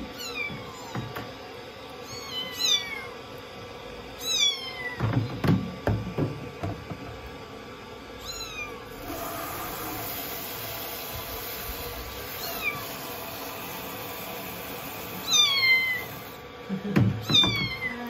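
A young kitten mewing over and over while being bathed, thin high cries that each fall in pitch. Water sprays from a handheld shower head for several seconds in the middle, with bumps and splashes in the basin.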